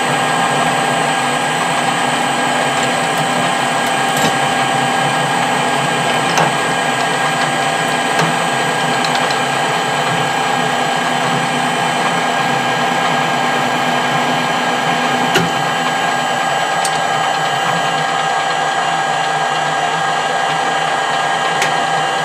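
Metal lathe turning at about 330 rpm while a high-speed steel tool takes a roughing cut, 20 thou a pass at 6 thou feed: a steady mechanical running sound with gear whine, broken by a few light ticks.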